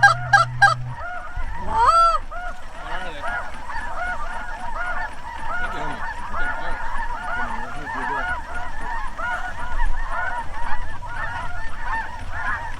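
A large flock of geese calling, many overlapping honks, with one louder honk about two seconds in.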